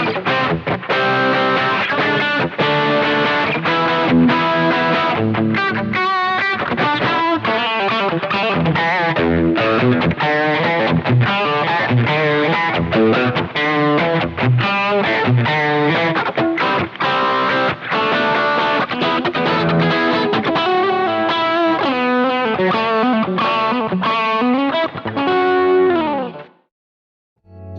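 Electric guitar played through a Ravenstone Apollo V2 overdrive pedal: a quick run of overdriven notes and chords that ends in a downward slide and cuts off near the end.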